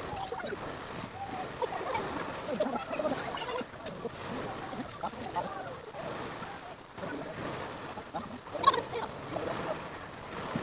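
Indistinct voices of people talking in the background over steady background noise, with one short, sharp sound a little under nine seconds in.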